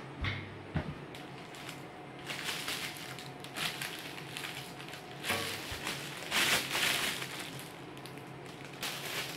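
Clear plastic packaging bags crinkling and rustling in irregular bursts as bagged parts, a cyclone separator and a coiled flexible hose, are handled, loudest about six to seven seconds in. A couple of light knocks near the start.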